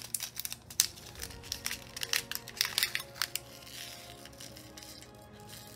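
Small zip-lock plastic bag crinkling and crackling as it is opened and handled, with the crackle dying away after about three seconds. Faint background music underneath.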